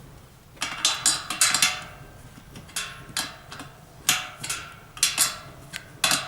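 Satellite dish's metal pole-mount bracket scraping and knocking in a series of short, irregular scrapes as the dish is swivelled on the pole with its bolts loosened for alignment.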